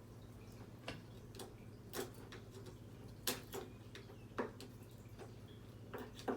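Irregular light clicks and knocks, about seven of them, of parts being handled during a headlight swap, over a steady low hum.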